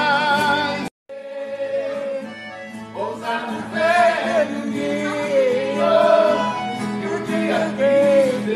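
A sung sertanejo song cuts off abruptly about a second in; after a brief silence, other music with singing voices plays.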